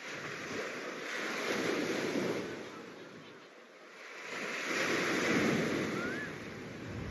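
Sea waves breaking and washing up the shore, in two swells about three seconds apart.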